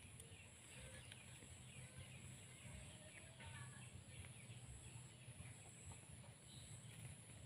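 Near silence: faint outdoor background with a steady high-pitched hiss and a low hum, and a faint short call about halfway through.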